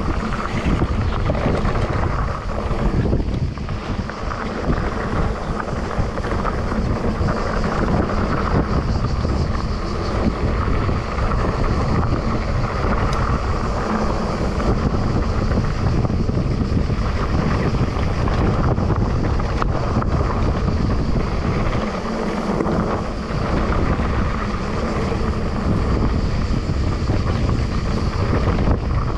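Steady wind noise buffeting the microphone of a camera riding along on a mountain bike, over the rumble and rattle of the bike's tyres rolling on a dry dirt trail.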